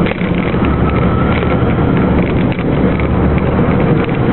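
Truck engine running steadily under load, heard from inside the cab on an uphill run, with wind noise over it.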